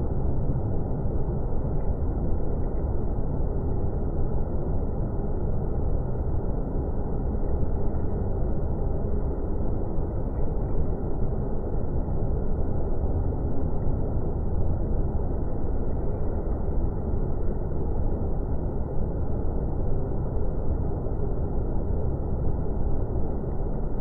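Steady, low, even rushing of a wide multi-tiered waterfall pouring into a pool, with no change throughout.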